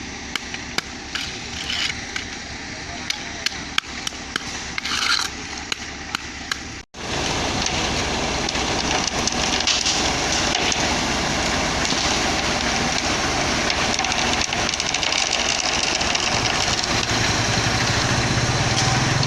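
Concrete road-casting work with mixer trucks. For about seven seconds there are sharp taps, knocks and scrapes. After an abrupt cut comes a louder, steady rushing noise, and a truck engine's low hum comes up near the end.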